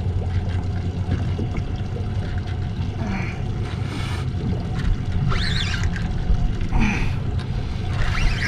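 Water slapping and splashing against the hull of a small boat every second or two, over a steady low hum.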